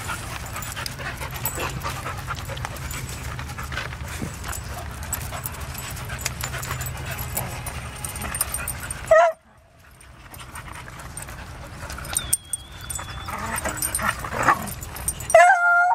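Dogs playing together, panting, with a short high yip about nine seconds in and a bark near the end.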